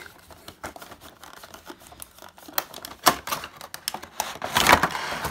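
Cardboard box and clear plastic packaging being handled and opened: scattered small clicks and rustles, then a louder rustling burst near the end as the plastic insert comes out of the box.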